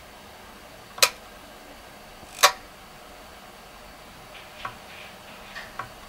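Programmable timer socket's 48-volt relay clicking: two sharp clicks about a second and a half apart, then a few fainter clicks near the end. The relay will not hold its contact under load, which the owner puts down to a fried coil.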